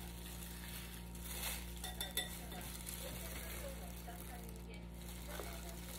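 Wire whisk stirring a thick batter in a glass bowl with light clinks of metal on glass, then a sharp clink about two seconds in as the whisk is knocked against the bowl's rim. A steady low hum sits underneath.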